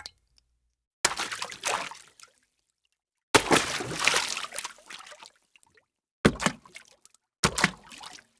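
A string of separate short water sound effects: a brief click, then four trickling, pouring bursts, the second about two seconds long, each cut off into dead silence.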